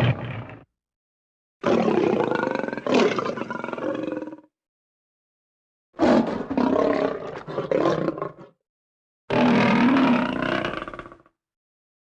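Lion roars from a sound-effects library: the tail end of one roar, then three separate roars. Each starts loud and fades away over about two seconds, with dead silence cut in between them.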